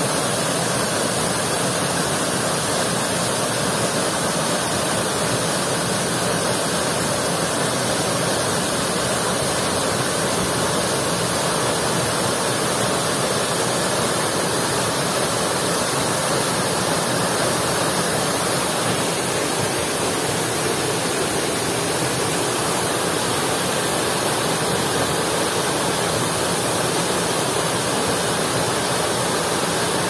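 Waterfall with two streams falling over rock into a pool, a steady, unbroken rush of falling water.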